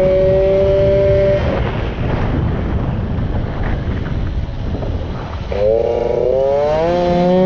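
Racing moped's small two-stroke engine at high revs, shutting off for about four seconds through a corner, then revving back up and holding steady at high revs. Wind buffets the onboard microphone.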